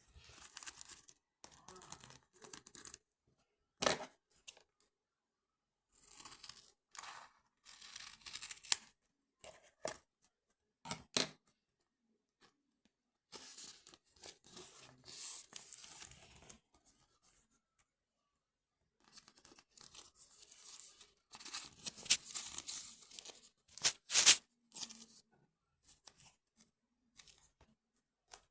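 Bursts of rustling, tearing-like noise, each lasting one to a few seconds with silent pauses between, and a few sharp clicks in among them.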